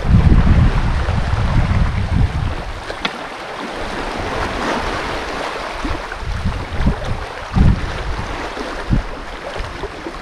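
Wind buffeting the microphone, strongest in the first two seconds or so, over small waves washing against a rocky shoreline, with a few soft low thumps in the second half.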